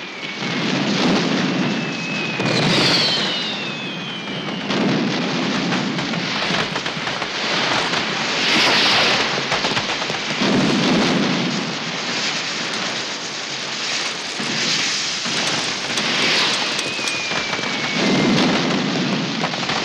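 A mass of fireworks going off together: a continuous crackle and hiss of showering sparks, broken by about four dull booms and a few descending whistles.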